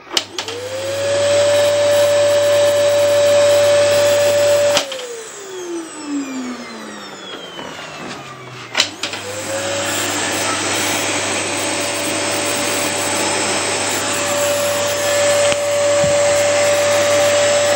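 Vacuum cleaner switched on with a click, its motor whine climbing to a steady high pitch. About five seconds in it is switched off and winds down, falling in pitch over a few seconds. Near nine seconds it is clicked on again, spins up and runs steadily.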